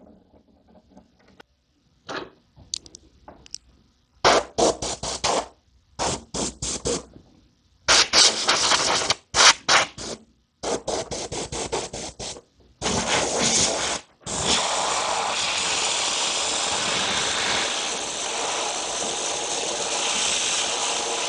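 Compressed air from a blow gun fired in a run of short blasts from about four seconds in, then held in one steady hissing blast from about fourteen seconds in, blowing loose flakes of peeling clear coat off the guitar. Before that, only a few faint scratches and taps as the plastic pick works at the finish.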